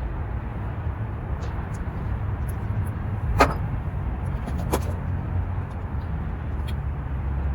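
Two sharp metallic clinks about a second and a half apart, with a few fainter ticks, from hand tools working the carburetor mounting nuts on an outboard. A steady low rumble runs underneath.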